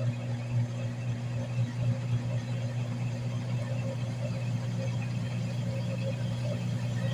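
Electric washing machine motor running with a steady low hum as the drum turns, pulsing slightly at first and then settling to an even whir.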